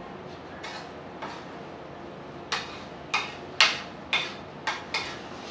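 Spoon scraping and knocking against a ceramic plate while scooping up curry and rice. Two faint strokes come in the first second and a half, then from about halfway through a run of louder, sharp strokes about two a second.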